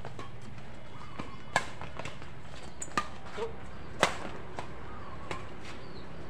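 Badminton rackets hitting a shuttlecock in a doubles rally: sharp hits about a second and a half apart, the loudest about four seconds in, with fainter ticks between.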